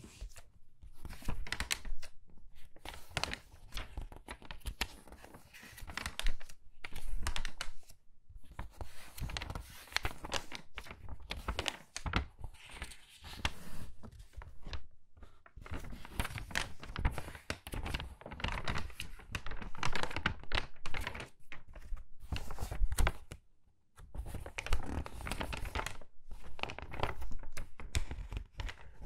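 Crinkly magazine pages turned by hand in quick succession: crackling, rustling paper that goes on in runs with a few short pauses.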